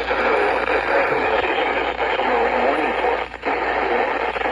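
Radio broadcast heard through heavy static hiss, with a muffled voice under the noise and a brief dropout about three seconds in.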